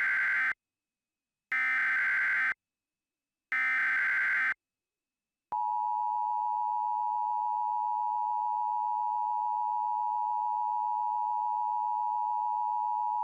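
Emergency Alert System signalling: buzzy one-second bursts of SAME header data, a second apart, then from about five seconds in the steady two-tone EAS attention signal, held for about eight seconds. These tones open an emergency alert broadcast.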